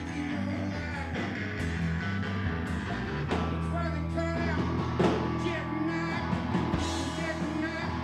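A live rockabilly band playing, with guitars and a drum kit.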